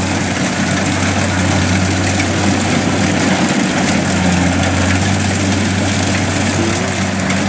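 Kubota DC70 combine harvester running steadily as it cuts rice: a constant, even engine hum with machinery noise over it, the pitch holding steady.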